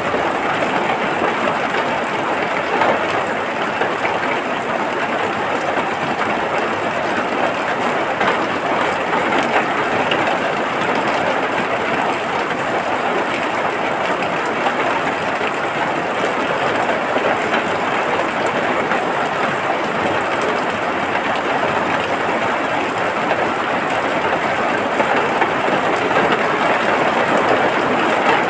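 Steady rain, a dense, even hiss of many drops that holds the same level throughout without pauses.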